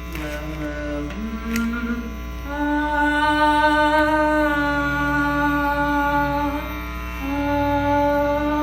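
Long held droning notes, rich in overtones and shifting pitch a few times, heard through a homemade contact microphone over a steady electrical hum and buzz from its wiring.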